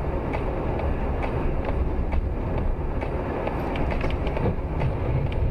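Steady tyre and engine rumble of a moving car, heard from inside the cabin through a dashcam microphone, with faint ticks now and then.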